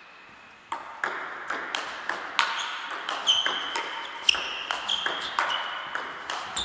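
Table tennis rally: the ball clicking sharply off bats and table in a quick, even run of about three hits a second, starting under a second in.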